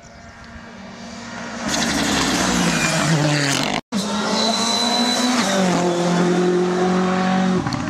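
Rally cars at full throttle on a tarmac stage: one engine swells in and its note falls as the car slows for a bend. After a sudden cut about four seconds in, another car's engine runs hard, its note stepping down once with a gear change.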